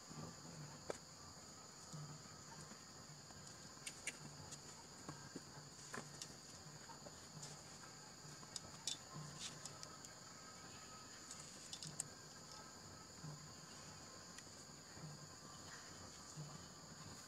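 Faint, steady high-pitched chorus of forest insects, with scattered soft clicks over it.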